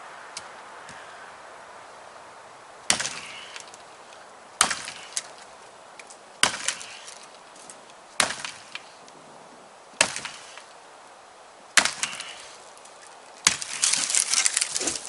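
A hatchet chopping firewood: seven sharp strikes into wood about every two seconds, some followed by small cracks of splintering, and a longer run of splitting and cracking wood near the end.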